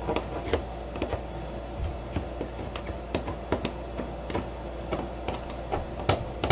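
Small hand file scraped in short, irregular strokes across the edges of a lightsaber hilt's metal emitter crown, roughing it up to weather it. A steady low hum runs underneath.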